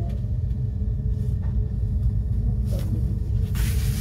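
Steady low background rumble, with a few faint ticks and a short rustle of plastic wrap near the end as hands come down on the shrink-wrapped cardboard mini LP sleeve.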